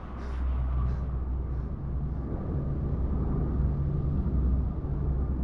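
Low, steady drone and rumble of a four-engine turboprop transport plane in flight. It grows louder just after the start.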